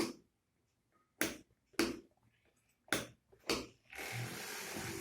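Several sharp clicks, then about four seconds in a small battery-powered fan motor starts and runs with a steady whirring hiss: a homemade shoebox vacuum cleaner being switched on.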